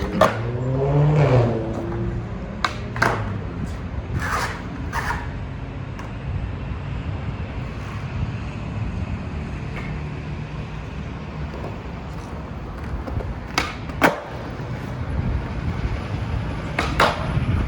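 Skateboard wheels rolling on pavement in a steady low rumble, broken by sharp clacks of the board popping and landing: a cluster in the first five seconds, then more near fourteen and seventeen seconds.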